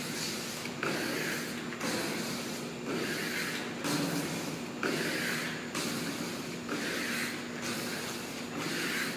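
Squeegee swiping over a decal being pressed onto a roll-off container panel in overlapping strokes, a rhythmic rubbing swish about once a second.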